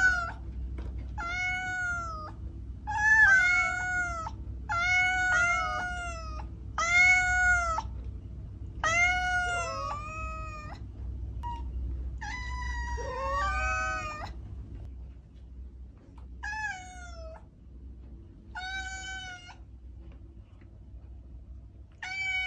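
An orange-and-white domestic cat meowing over and over: about a dozen drawn-out meows, each rising then falling in pitch. They come close together, some overlapping, for the first 14 seconds or so, then fewer and further apart.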